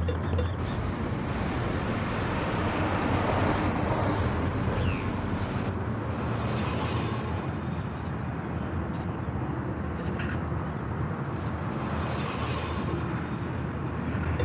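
Street traffic noise: a vehicle passes in the first few seconds, swelling and fading, then a steady roadway hum.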